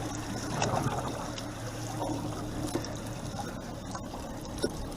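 Water trickling and splashing around a small fishing boat, over the steady low hum of the boat's motor, with a few small knocks.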